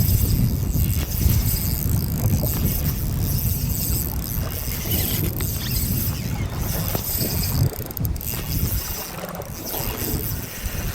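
Wind buffeting the microphone in a steady low rumble, with waves washing against the hull of a fishing boat and a few knocks.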